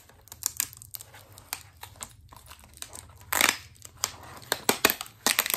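Plastic packaging crinkling and rustling while plastic shoe-rack parts are handled, with many short sharp clicks and knocks and a louder burst about three seconds in.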